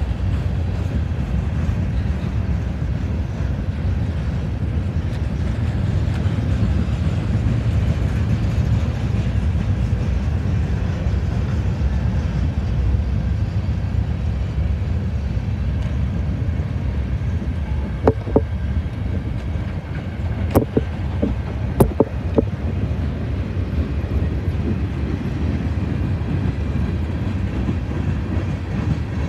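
Freight cars of a mixed freight train rolling past at close range, a steady deep rumble of wheels on rail. A few sharp clanks break through about two-thirds of the way in.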